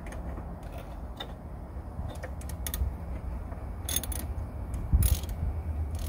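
Ratchet wrench with a 10 mm socket clicking in short, irregular strokes as it turns a door-handle bolt inside a car door, with a couple of louder metallic knocks near the end.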